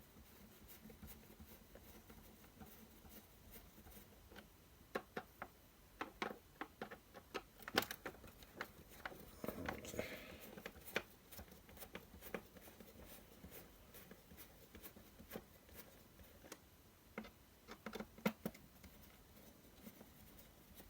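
Scattered light clicks and taps with a brief rustle about halfway through, from hands working a diecast model car free of its plastic box packaging.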